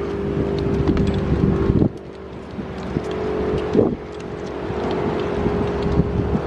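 Federal Signal STL-10 outdoor warning siren sounding its steady full-alert tone, with no rise or fall in pitch. Its loudness drops sharply about two and four seconds in and builds back up each time. Wind rumbles on the microphone.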